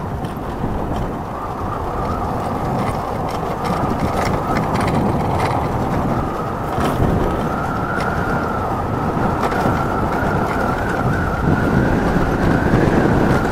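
Yamaha R15 V3 motorcycle, a 155 cc single, riding at a steady speed: engine running with a constant faint whine and heavy wind rush on the helmet microphone.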